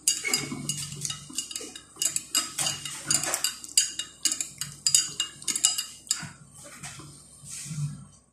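A spoon clinking quickly and irregularly against the inside of a mug of tea, as in stirring. The strikes come densely and then thin out after about six seconds.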